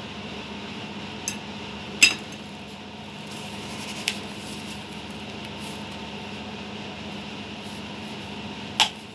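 A few sharp clinks of a metal wire whisk against a ceramic mixing bowl, the loudest about two seconds in as the whisk is laid down in the batter, with another near the end. A steady hum runs underneath.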